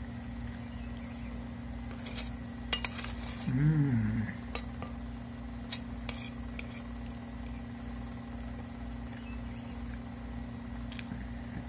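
Metal spoon clinking and scraping on a ceramic plate during a meal, with a few sharp clinks, over a steady low hum. A brief hummed "mm" about three and a half seconds in.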